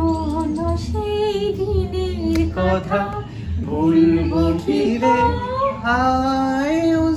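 A woman singing a Bengali folk song unaccompanied, holding long notes that glide and waver in pitch, with short breaths between phrases.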